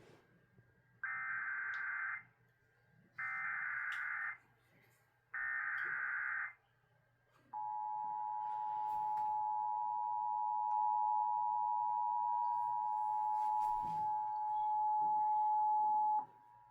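Emergency Alert System tones on AM radio. Three short bursts of digital SAME header data come about two seconds apart, then the steady two-tone attention signal holds for about nine seconds and cuts off suddenly near the end. Together they announce a flash flood warning.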